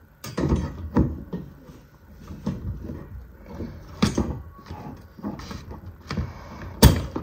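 Irregular clicks and knocks of a metal wire frame being handled and fitted together during assembly, with one sharp knock near the end.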